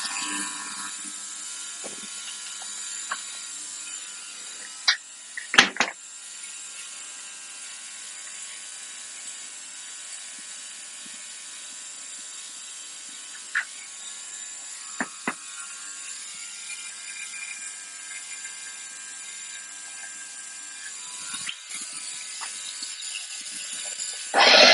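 A few isolated sharp metallic clicks and knocks of hand tools being handled over a steady faint hum, the loudest a quick double knock about six seconds in.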